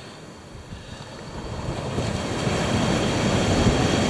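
Wind rushing over the microphone with surf on the beach, a steady rushing noise that swells louder between one and three seconds in.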